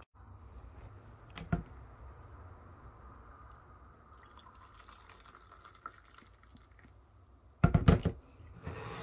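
Water poured from an electric kettle into a cup, a faint trickle lasting a few seconds, then a loud clunk and rattle as the kettle is set back down on the bench. A single knock comes about a second and a half in.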